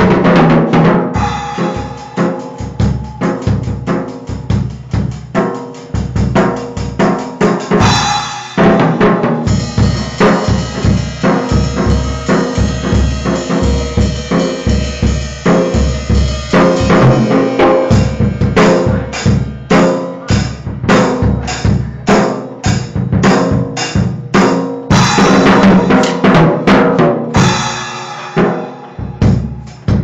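Acoustic drum kit played with sticks: a steady, dense run of bass drum, snare and tom strokes. Cymbals ring over the beat for several seconds at a time, from about a third of the way in through the middle, and again near the end.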